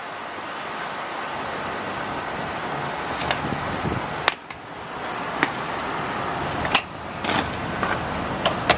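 Steady background noise like distant traffic, with a few sharp clicks and knocks scattered through it; no hammering yet.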